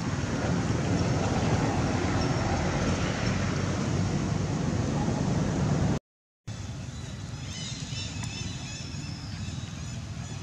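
Wind buffeting the microphone as a loud, steady rumble. About six seconds in the sound cuts out for a moment, then returns quieter, with a run of high, wavering chirps.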